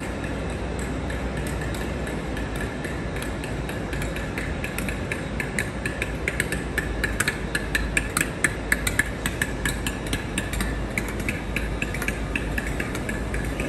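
Class 57 diesel locomotive idling at a station platform: a steady low hum. Over it comes a run of irregular sharp clicks, thickest and loudest about halfway through.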